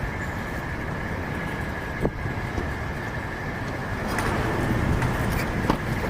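Steady rumble of idling engines, with a constant high-pitched whine over it and two sharp clicks, about two seconds in and near the end.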